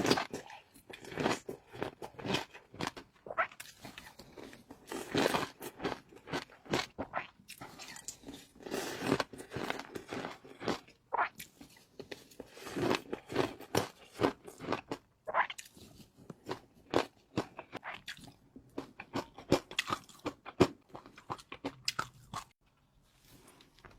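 A person eating close to the microphone, biting and chewing food with many irregular crisp crunches and small pops.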